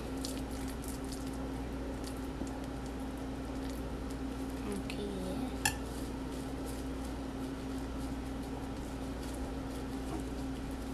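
Soft squishing of raw seasoned ground-meat mixture being rolled into meatballs between plastic-gloved hands, over a steady background hum. A single sharp clink comes a little over halfway through.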